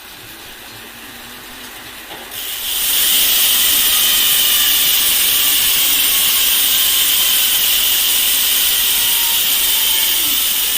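Sword rear hub's 6-pawl freehub freewheeling fast, the pawl clicks merging into a loud, steady, high-pitched buzz. It builds quietly, then jumps in level about two and a half seconds in.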